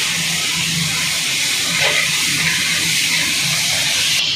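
Freshly added tomato slices sizzling loudly in hot oil in a kadai while they are stirred with a metal spatula.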